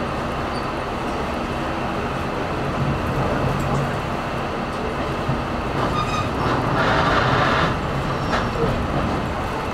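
Cabin noise inside a moving diesel railcar: a steady low rumble of engine and wheels on the rails, with a brief louder rushing hiss about seven seconds in.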